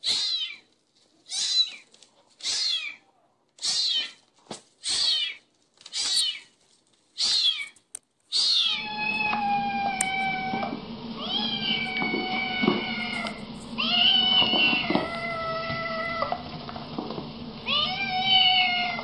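Kittens mewing: a run of short, high mews that fall in pitch, about one a second, then longer, drawn-out mews over a steady low hum.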